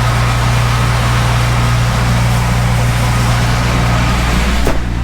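Tractor engine running steadily at a low, even speed, with one short knock near the end.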